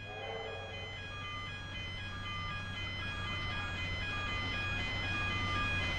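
A repeating electronic chime pattern of short ringing tones over a steady low hum that grows gradually louder.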